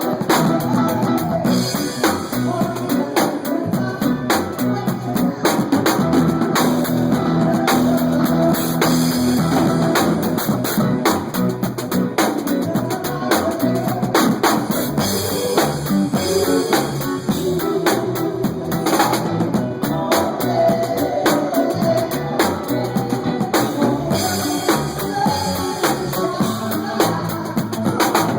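Live band playing an up-tempo dance tune: a drum kit with kick, snare and rimshots keeps a steady driving beat under sustained bass and other instruments.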